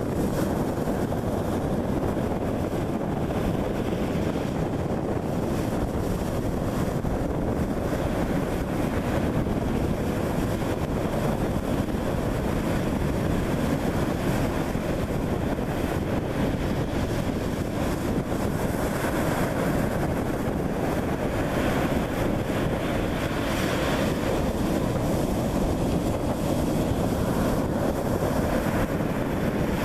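Steady wind noise buffeting the microphone, a low even rush, with the wash of surf behind it.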